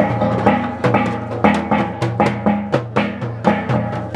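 Traditional gongs and drum beaten in a fast, steady rhythm of about three strokes a second, the gongs ringing on between strokes: the accompaniment of the pangngaru war dance.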